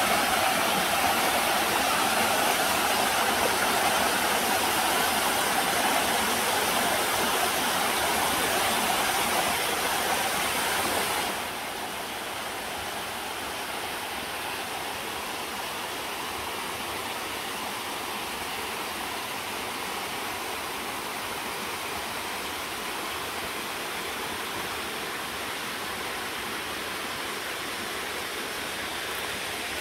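Small mountain stream rushing down bare rock slabs, a steady hiss of falling water. About eleven seconds in it drops suddenly to a softer, duller rush.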